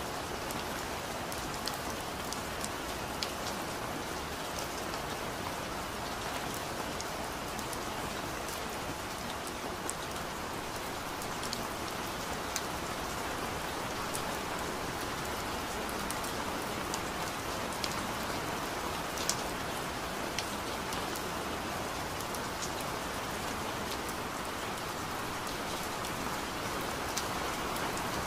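Steady recorded rain, an even hiss of rainfall with scattered sharp drop ticks.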